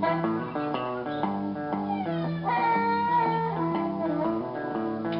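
Background music led by guitar over a bass line, its notes changing about twice a second.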